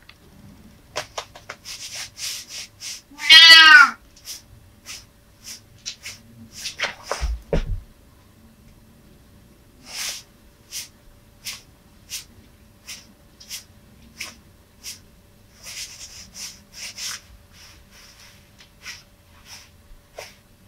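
A domestic cat meows: one loud, drawn-out call about three and a half seconds in, then a shorter falling call with a low thump about seven seconds in. Many short soft taps and scuffs run through the rest, typical of cats' paws moving about on a carpeted floor.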